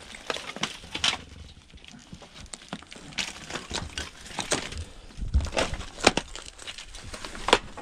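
Boots crunching and shifting through fire-charred rubble and broken sheeting, with irregular sharp knocks and clatters of debris; the sharpest come about six seconds and seven and a half seconds in.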